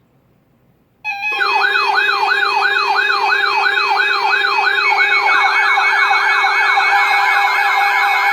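Electronic siren-style alert tone of an Emergency Alert System warning, starting abruptly about a second in. The pitch sweeps downward repeatedly, about three times a second, over steady held tones, and the sweeps speed up roughly four seconds after the start.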